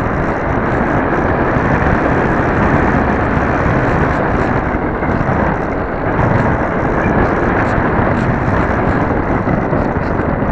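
Steady, loud rushing noise picked up by the onboard camera of a Dynam Hawk Sky RC plane in low flight: airflow over the microphone mixed with the plane's electric motor and propeller.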